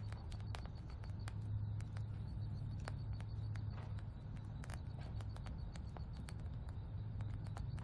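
Quiet ambience heard inside a wooden cabin with its window open: a steady low hum under scattered, irregular faint clicks and ticks.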